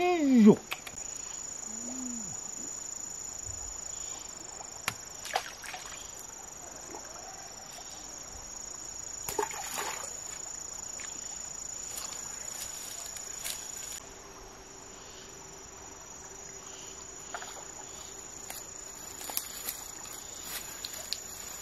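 Insects chirring in a steady, high, even drone, which drops in level about two-thirds of the way through. A few brief knocks and rustles come through now and then.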